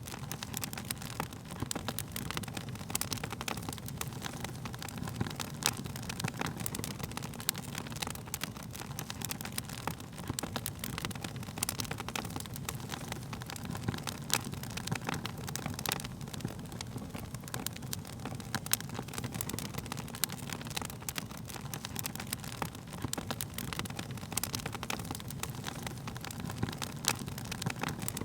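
Wood fire burning steadily with dense, irregular crackles and pops over a low rushing of the flames.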